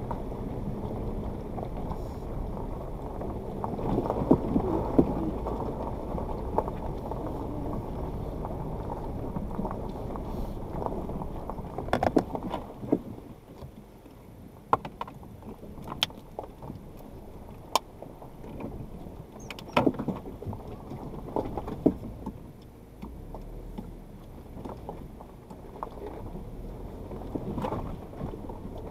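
Suzuki Jimny crawling over a rocky riverbed track: low engine and tyre noise on loose stones, with sharp knocks and clicks now and then from stones and the body. The noise grows quieter a little under halfway through.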